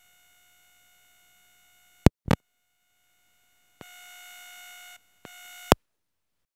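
A steady electronic beep tone, faint at first and broken by two sharp clicks about two seconds in, then louder in two short stretches that each cut off suddenly.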